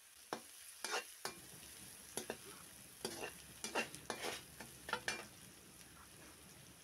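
A perforated metal skimmer scraping and knocking against a metal kadai as chopped onion, green chillies and capsicum are stirred, over a faint sizzle of the vegetables frying in oil. The scrapes come irregularly, a couple a second, and stop about five seconds in.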